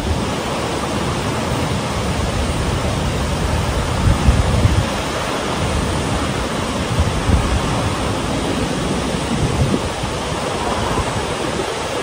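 Steady rushing of a large waterfall, Chinda Falls, a wide curtain of water about 20 m high, with the river below running over rocks.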